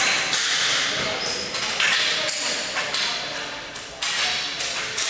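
Ball hockey play in a large echoing arena: repeated sharp clacks and knocks of sticks and the ball hitting the concrete floor and boards, about one every half second to a second, with players' voices.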